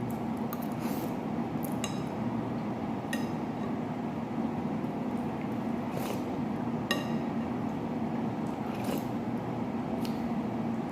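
Eating a fish head in soup: a utensil clinks against a dish about six or seven times, some clinks ringing briefly, with wet eating noises between, over a steady low hum.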